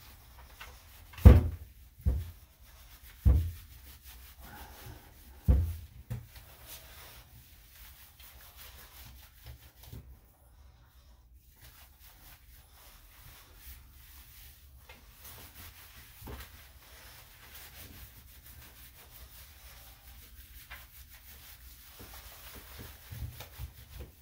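Hands scrubbing shampoo lather into a wet dog's coat: a soft, steady rubbing and scratching, with a few dull thumps in the first six seconds.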